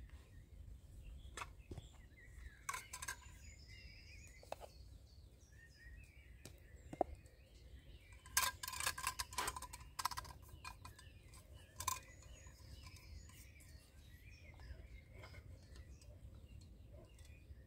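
Birds singing in woodland, with light metallic clicks and clinks from a Swedish army M40 mess kit being handled, loudest in a short clatter about eight to ten seconds in.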